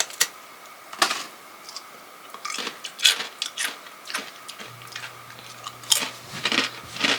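Crunchy protein chips being chewed close to the microphone: irregular sharp crunches and crackles, a few a second.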